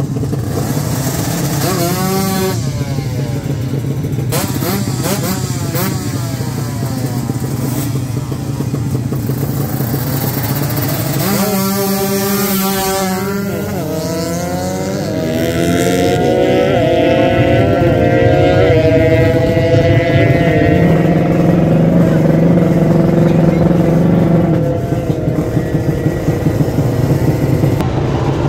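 Drag-racing motorcycles revving at the start line, then launching and accelerating hard away, the engine note climbing in a series of rising steps through the gearchanges. Near the end an engine runs with a rapid, even pulse.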